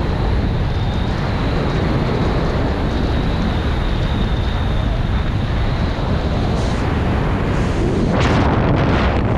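Loud, steady wind rush buffeting the microphone during a parachute jump, getting a little louder and brighter about eight seconds in.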